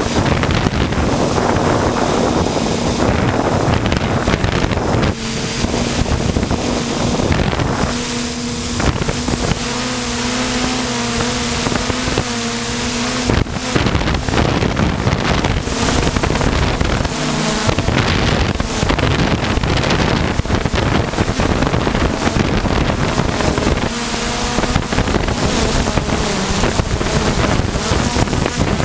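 Electric motors and propellers of an FPV hexacopter humming steadily, picked up by its onboard camera, with heavy wind buffeting the microphone. The motor pitch dips briefly and comes back up about halfway through.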